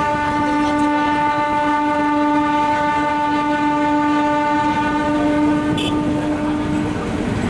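Train horn sounding one long, steady blast over the running noise of the moving train, cutting off near the end.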